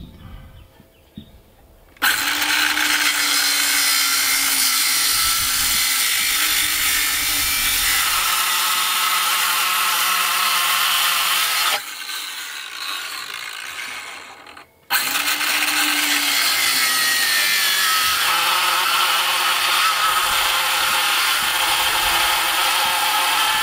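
Cordless circular saw cutting wet pressure-treated lumber, hard going for the saw. It starts about two seconds in and runs steadily for about ten seconds, eases off and almost stops, then starts again about halfway through and keeps cutting.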